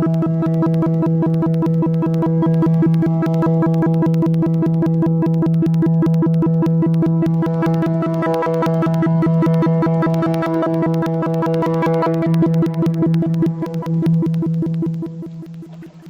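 Conch shell trumpet blown in one long, steady low note rich in overtones, fading away near the end.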